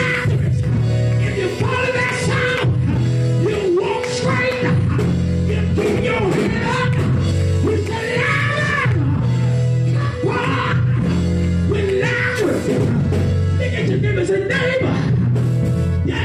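Live gospel music from a church band: drums and sustained deep bass notes changing every second or two, under a man singing into a microphone.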